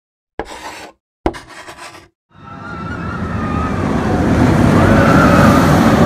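Logo intro sound effects: two sharp hits about a second apart, each with a short tail, then a rushing rumble with a thin whistle in it that swells for about three seconds, like a vehicle approaching.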